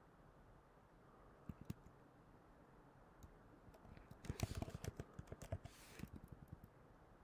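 Typing on a computer keyboard: two key taps about a second and a half in, then a quick run of keystrokes from about four seconds in until near the end.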